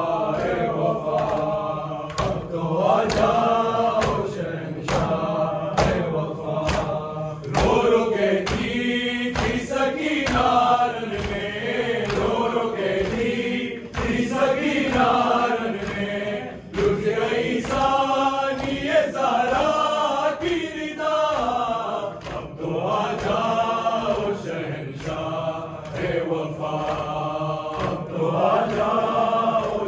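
Men's voices chanting an Urdu noha, a Muharram lament, together in a slow melodic line, over a steady beat of sharp strikes that fits matam, hands beating on chests in time.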